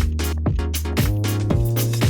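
Background electronic dance music with a steady four-on-the-floor kick-drum beat, about two beats a second, over a sustained bass line.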